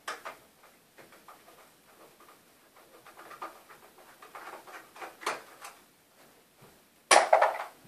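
Hand screwdriver working screws out of a laser printer's chassis: faint scrapes and small ticks. Near the end comes a short, loud clatter of parts.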